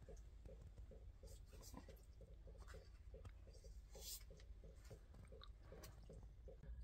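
Faint, regular slicing of raw lamb meat with a knife, at about three soft strokes a second, over a low steady hum.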